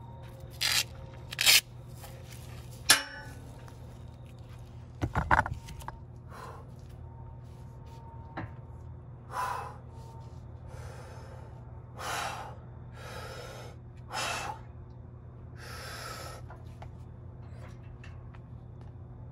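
A few sharp metal clanks and knocks from a loaded barbell being handled in a squat rack. These are followed by about six forceful, breathy exhales from a lifter working through reps. A steady low hum runs underneath.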